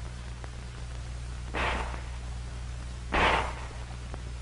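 Two short handgun shots about a second and a half apart, the second louder, over the steady hum of an old film soundtrack.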